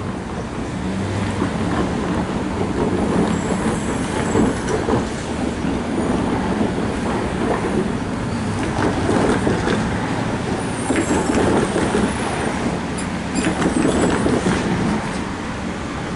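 Empty coal hopper cars of a CSX freight train rolling past, a steady rumble and clatter of steel wheels on the rails, with a few faint high squeals.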